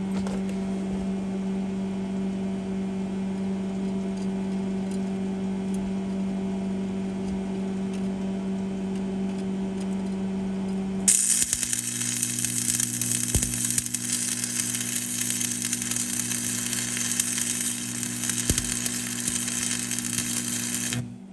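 Stick welder humming steadily, then about halfway through the arc strikes and crackles and sizzles for about ten seconds before cutting off. The welder is turned up to 135 to weld onto a stripped motor mount bolt so that it can be unscrewed.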